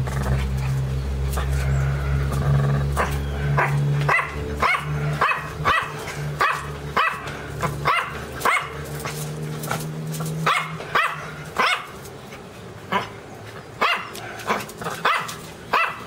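Small Chihuahua-type dog barking: repeated high, yappy barks, about two a second, starting a few seconds in and pausing briefly around the middle. A steady low hum runs underneath during the first half.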